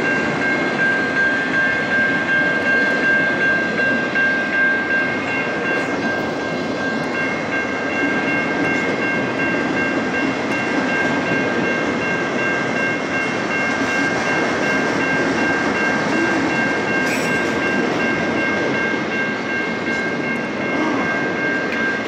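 Freight train of autorack cars rolling steadily past, wheels rumbling and rattling on the rails, with a steady high-pitched squeal held over it.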